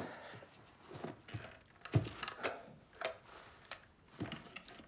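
Scattered soft knocks, taps and rustles of people moving and handling things, with one dull thump about two seconds in.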